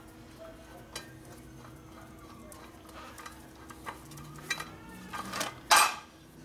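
Steel scissor-type motorcycle lift being worked by hand: scattered metal clicks and clinks from its screw and frame, then one loud metal clank a little before the end. The mechanic suspects the lift's screw threads have been damaged.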